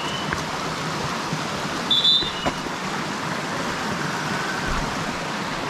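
Steady rushing of a river or stream. A few short high chirps about two seconds in.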